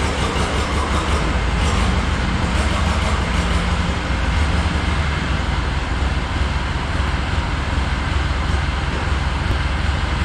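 Vintage Clark forklift's Continental flathead four-cylinder engine running steadily, a loud low rumble.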